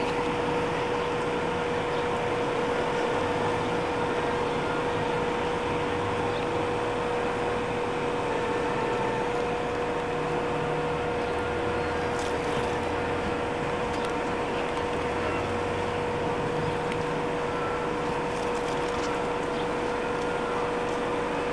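A steady hum with a constant mid-pitched tone over an even hiss, with faint low rumbles coming and going.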